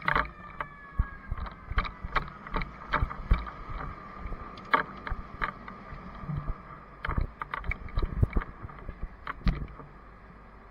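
Irregular knocks and clunks, several a second at times, as gear and the crew-cab of a fire engine are handled and climbed into, over a steady high whine. The knocks stop shortly before the end.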